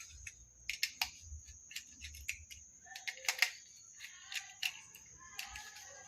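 Irregular small clicks and ticks of a screwdriver working the four screws of a washing machine tap adapter loose, with a faint steady high-pitched whine behind.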